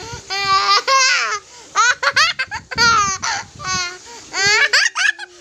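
A toddler laughing hard in a string of short, high-pitched bursts, one after another.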